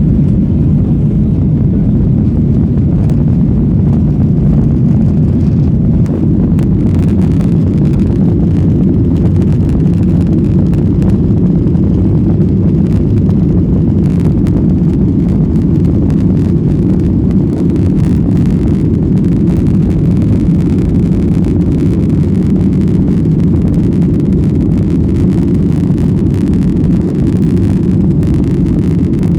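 Jet Airways airliner taking off: a steady, loud low rumble of jet engines and airflow.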